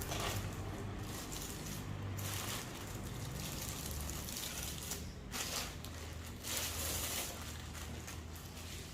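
Unboxing packaging being handled: several short bursts of rustling and crinkling over a low steady hum.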